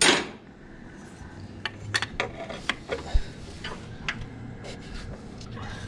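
Metal hand tools clinking and tapping: a wrench working on engine parts, with scattered sharp clicks and a louder scraping rush at the very start.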